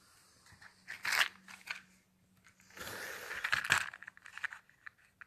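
Handling noise: rustling and scraping close to the phone's microphone, a short burst about a second in and a longer rustle with a few small clicks around three seconds in.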